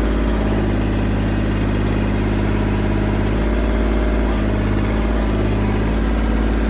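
Tractor engine running steadily while the backhoe is worked, its sound rising under hydraulic load and easing off several times as the controls are moved.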